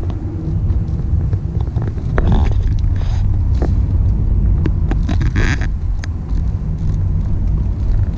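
Inside the cabin of a Volvo V60 T6 with the 2.0-litre four-cylinder VEA engine, driving slowly at low revs: a steady low engine and road rumble. A few short clicks and knocks sound over it.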